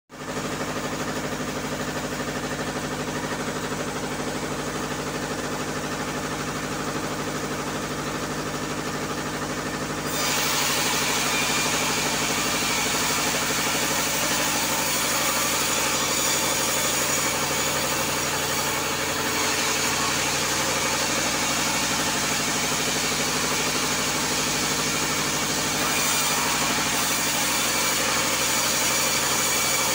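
Vertical bandsaw mill running with a steady mechanical hum; about ten seconds in the blade starts cutting into a log on the carriage, and a harsh hiss of sawing wood joins the hum and carries on.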